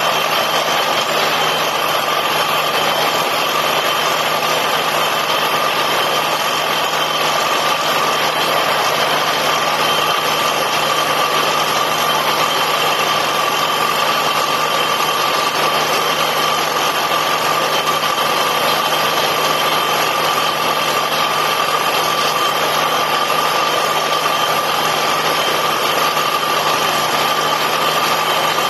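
Borewell drilling rig running steadily: a loud, unchanging machine noise with a steady high whine over a low hum.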